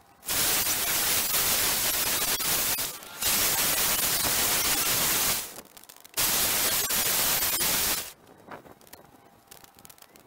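Trigger spray bottle spraying water onto a plastic headlight lens to wet it for sanding, in three spells of steady hiss, each two to three seconds long, with brief pauses between.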